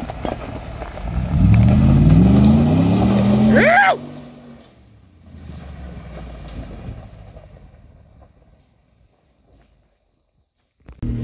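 Lifted Ford F-150's engine revving up as the truck pulls away, its pitch climbing for about three seconds, with a short high rising-and-falling whoop just before it drops off sharply. The engine then fades into the distance until it can no longer be heard near the end.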